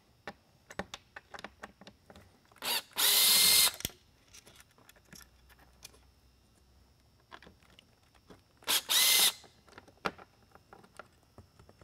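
Cordless drill/driver running twice in short bursts of about a second each, backing out the two Phillips head screws that hold an LED light head module to the light bar's base. Small clicks of handling come between the bursts.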